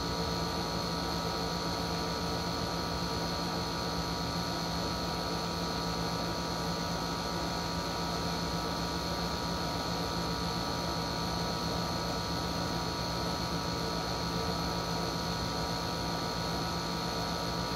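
Steady electrical hum and hiss, with several constant tones over it including a high whine, unchanging in level.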